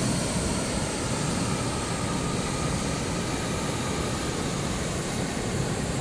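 Steady rush of a river waterfall pouring over rock ledges.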